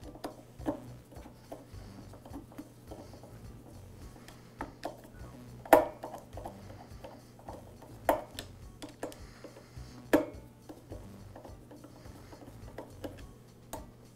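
A screwdriver turning the small screws that hold an intake insulator and gasket to a two-stroke blower cylinder: light clicking and rubbing of tool on screw, with three sharper clicks about two seconds apart.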